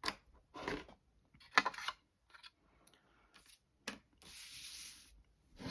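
Hands handling plastic model-kit parts and tools at a workbench: several brief rubbing and scraping strokes, then a steady soft hiss lasting about a second near the end.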